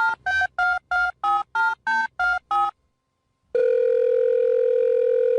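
Telephone keypad tones: a quick run of about ten short electronic beeps at varying pitch, about three a second. Then a single steady electronic tone starts about three and a half seconds in and holds for about two seconds.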